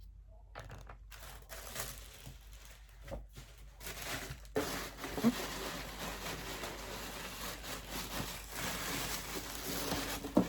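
Packaging crinkling and rustling as items are unwrapped and handled, with scattered light clicks, quieter at first and louder from about halfway through.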